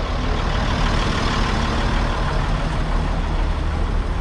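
Diesel engine of a Nissan CK31L concrete pump truck idling steadily while the truck stands still.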